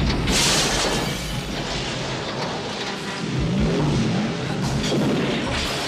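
A film sound-effects track: a burst of flame goes up with a hissing whoosh about half a second in, over a heavy low rumble, with another hissing flare near the end.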